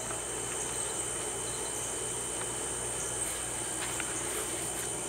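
Steady, high-pitched drone of an outdoor insect chorus, with a few faint ticks.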